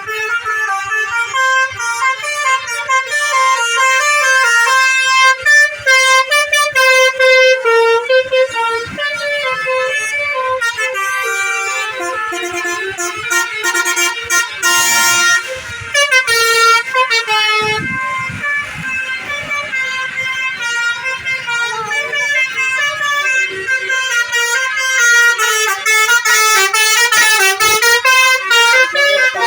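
Musical 'telolet' bus horns (basuri-type multi-tone air horns) playing tunes, the notes stepping quickly up and down in a continuous stream. A short hiss comes about fifteen seconds in.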